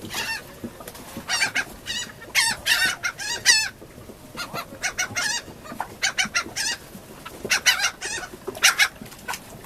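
A flock of gulls calling, many short high calls coming in quick runs of two to five, one over another.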